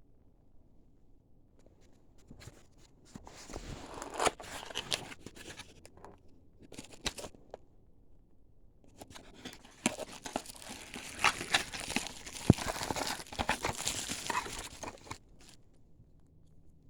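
LiPo battery packaging being handled and opened by hand: rustling with many sharp clicks, in one spell from about two seconds in to six, a short burst near seven, and a longer spell from about nine seconds to fifteen.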